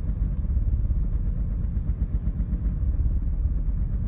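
2008 Audi A4 B7 2.0T turbocharged four-cylinder engine idling roughly, a low rumble that pulses unevenly, with the car shaking. The rough idle comes with the EPC and traction lights on, a fault the owner has not traced despite changing parts.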